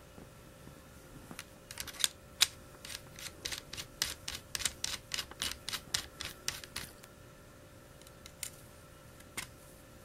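Rapid small metallic clicks, three to four a second for about five seconds, then two single clicks near the end, from metal parts of a WE MP5 gas blowback airsoft gun being handled and taken apart by hand.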